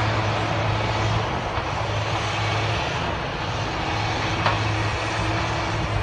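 Heavy machinery's engine running steadily, a low hum over a broad rumble, with the hum dropping out briefly about three seconds in.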